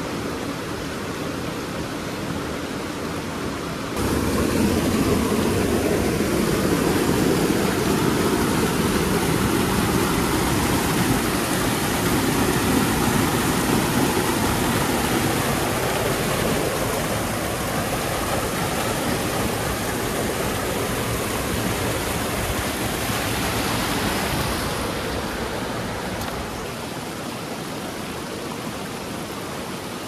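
Rushing water of a mountain stream and small waterfall: a steady noise that becomes suddenly louder about four seconds in and eases off near the end.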